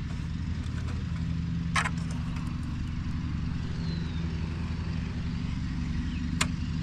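Riding mower starter solenoid clicking sharply twice when the key is turned, with the Briggs & Stratton V-twin not cranking: the no-start the owner is diagnosing with a borrowed starter and a weak jump pack. Under it runs a steady low engine-like hum.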